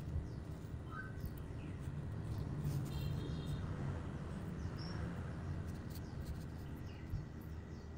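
Steady low background rumble with a few faint, short bird-like chirps scattered through it.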